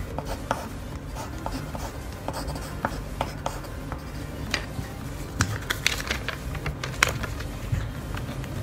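Pencil writing on a sheet of paper on a desk: short scratching strokes and light taps, busier and sharper in the second half, over a steady low hum.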